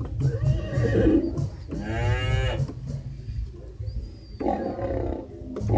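Sampled animal calls played from a synthesizer's animal-sound keys, three in turn. The middle call, about two seconds in, is a loud quavering call.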